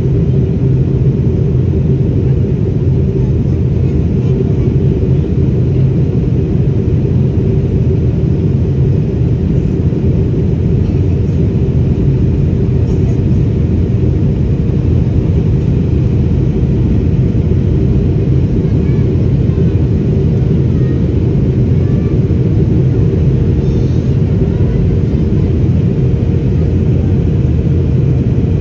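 Steady cabin noise inside an Airbus A220-300 airliner: a loud, even low rumble from its Pratt & Whitney PW1500G geared turbofan engines and the air rushing past the fuselage.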